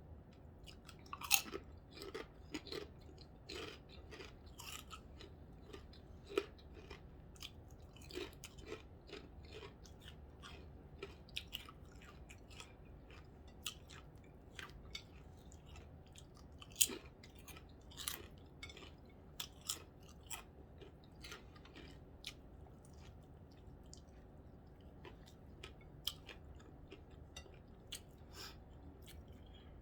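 A person chewing a corned beef sandwich close to the microphone: quiet, irregular wet mouth clicks and smacks, with a few louder ones here and there.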